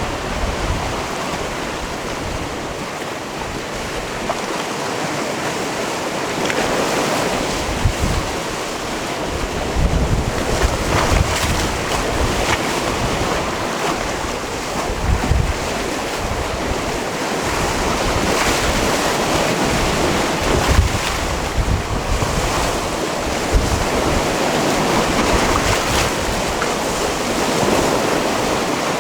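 Mediterranean sea waves washing into a rocky cove, a continuous surf wash that swells and eases every few seconds. Gusts of wind rumble on the microphone.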